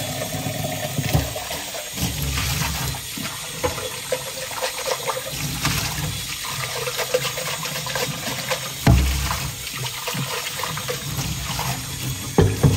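Tap running hot water into a sink, rinsing thin puppy mush down the drain. A few dull thumps sound over the rush of water, the loudest about nine seconds in and another near the end.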